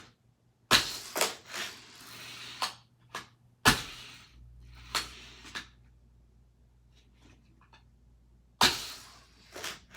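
Hot Wheels die-cast car and plastic track pieces clattering: a string of sharp clacks with a short rattling roll about a second in.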